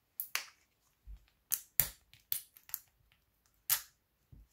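Small clear plastic diamond-painting bead container handled in the fingers: a series of about eight irregular sharp plastic clicks and scrapes as the number label is picked off it.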